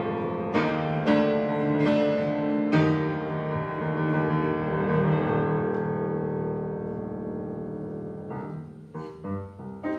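Piano chords struck three times in the first three seconds, left ringing and slowly fading; shorter, choppier sounds come in near the end.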